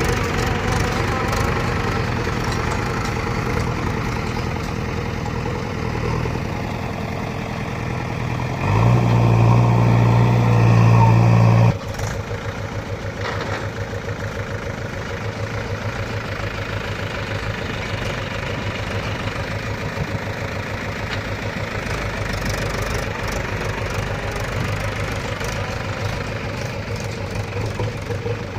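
Heavy diesel machinery engine running. About nine seconds in it runs louder and higher for about three seconds, then cuts off abruptly into a steadier, lower run with an even beat.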